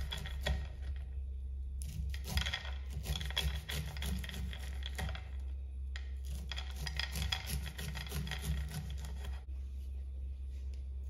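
Large kitchen knife slicing kernels off a cob of fresh white corn onto a wooden cutting board: repeated rasping, scraping strokes, with short pauses about a second in, about six seconds in and near the end.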